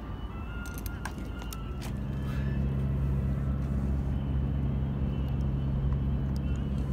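A low, steady engine drone that swells in about two seconds in and then holds, with a few sharp clicks before it.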